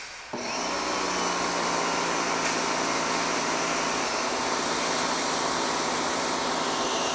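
Suyncll electric pressure washer starting about half a second in and then running steadily, pumping at about 1000 PSI through its stock nozzle. It makes a constant hum under a loud hiss.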